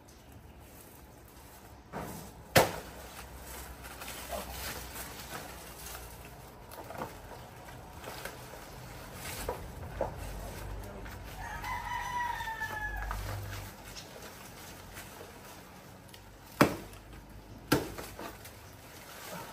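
A rooster crowing once near the middle, among a few sharp chopping strikes into a banana plant's stalk. The loudest strikes come about two and a half seconds in and twice near the end.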